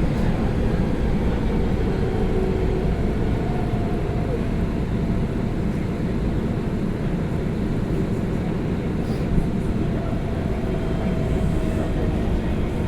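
Osaka Metro 22 series subway train in the station: a steady low rumble with a faint whine coming and going, and a single brief click about three seconds in.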